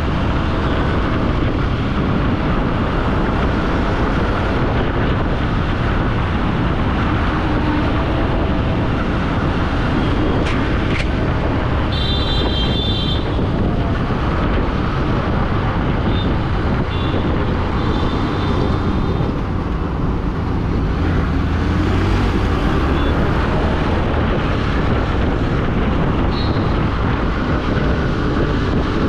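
Motorcycle riding in city traffic: a steady mix of the bike's engine, wind on the microphone and surrounding traffic. A short high-pitched tone sounds about twelve seconds in.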